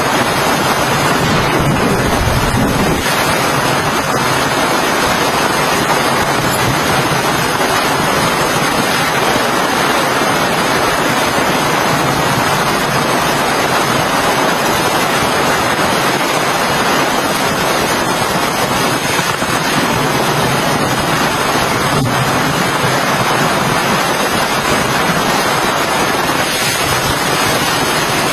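Steady heavy rain, a constant even hiss with no let-up.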